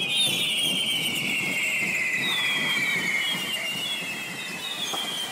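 Correfoc fireworks: several hand-held whistling fireworks going at once, their high shrill whistles overlapping and sliding slowly down in pitch over a steady hiss, fading a little near the end.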